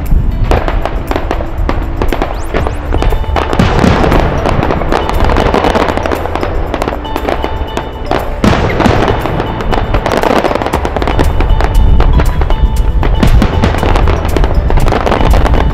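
Fireworks display: dense crackling and bangs of bursting aerial shells, starting just after the beginning and running as a continuous barrage, over background music.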